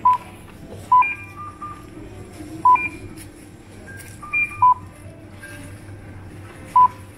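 Supermarket checkout scanner beeping as items are rung up: about six short, loud single beeps at uneven intervals, two of them close together midway. Fainter, higher electronic tones sound between the beeps over a steady low hum.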